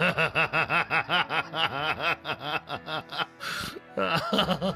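A man laughing in his sleep: a rapid run of 'ha-ha' pulses, about five a second, broken a little after three seconds by a short breath in, then laughing again.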